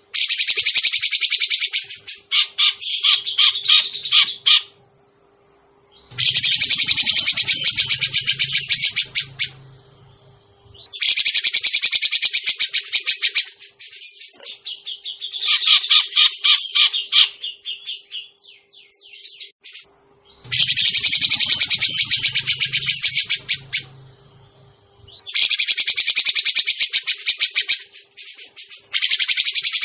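Grey-cheeked bulbul (cucak jenggot) calls played as a bird-luring recording: repeated bursts of fast, harsh chattering, each a couple of seconds long, with shorter runs of notes between them.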